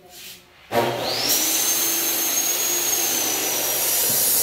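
An electric motor switches on suddenly about a second in. Its whine rises quickly as it spins up, then it runs steadily at full speed with a loud hiss.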